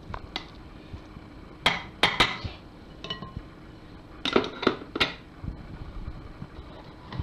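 Short clinks and taps of a spatula against a fluted ceramic baking dish while filling is spread in it. There are three taps about two seconds in and four more between about four and five seconds.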